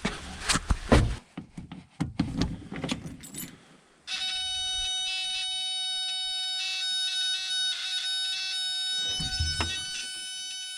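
Clicks and knocks, with keys jangling, then about four seconds in the backhoe's dash warning buzzer comes on as the key is switched on and holds a steady high-pitched tone. Near the end there is a single low clunk but no cranking: the engine does not turn over, which the owner blames on a failing starter.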